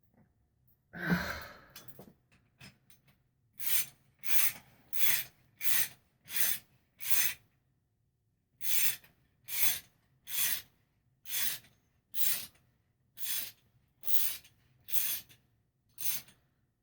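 Ratchet wrench worked in about fifteen short strokes, a little over one a second with a brief pause midway, running a Yamaha Virago fork cap down until tight. A single louder thump comes about a second in.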